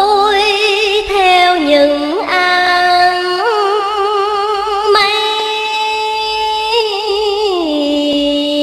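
A woman singing vọng cổ, the Vietnamese cải lương song form, drawing out a long wordless melisma. She holds notes with a wavy vibrato, glides between pitches, and drops to a low held note near the end.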